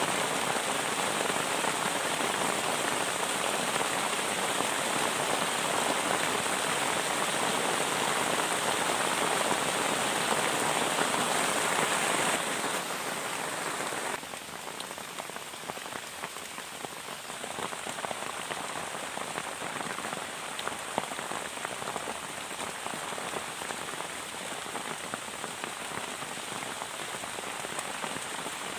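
Heavy rain falling steadily on a plastic tarp shelter. It gets noticeably quieter about halfway through, and single drops stand out after that.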